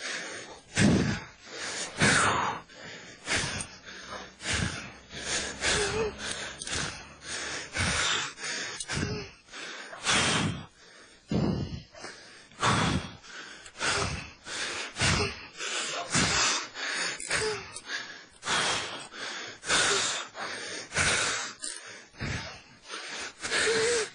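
Heavy panting, about one loud breath a second, from men winded by a foot chase and a struggle on the ground.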